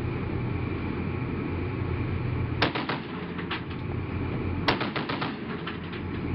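Browning M2 .50 caliber heavy machine gun firing short bursts over a steady low rumble: a quick burst of a few rounds about two and a half seconds in, two more shots shortly after, then a longer burst of about half a dozen rounds nearly a second later.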